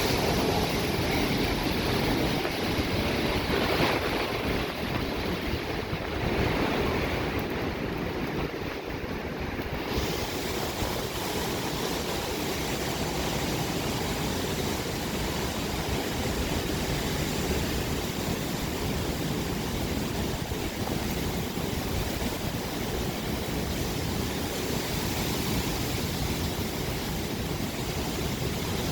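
Hurricane-force wind rushing steadily, gusting a few times in the first several seconds, then holding even.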